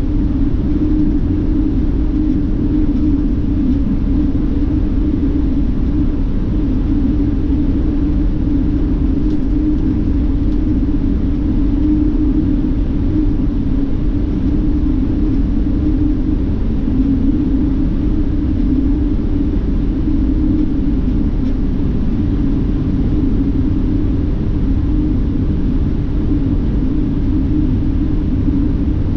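Steady low rumble of a highway coach bus heard from inside the passenger cabin: engine and tyre-on-road noise while the bus travels along the highway, with an even droning hum and no changes.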